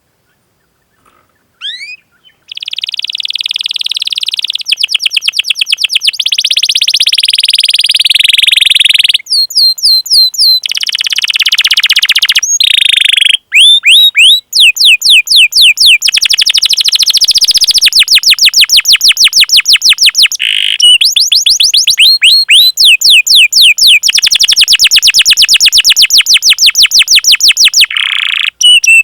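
Domestic canary singing: after a couple of short rising chirps, a long unbroken song of fast rolled trills and rapidly repeated rising 'cuit cuit' notes begins about two and a half seconds in and continues with only brief breaks.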